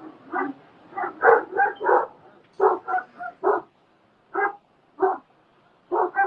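Dog barking repeatedly, about a dozen short barks in uneven clusters.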